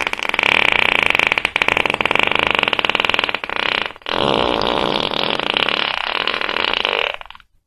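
A person farting: two long, loud, fluttering farts, the first running about four seconds and the second about three, with a brief break between them.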